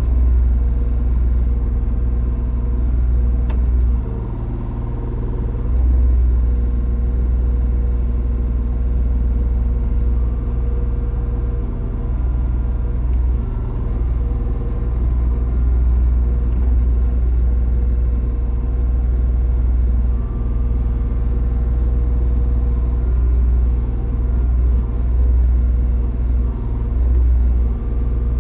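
Backhoe loader's diesel engine running, a steady low rumble that eases off briefly and picks up again a few times.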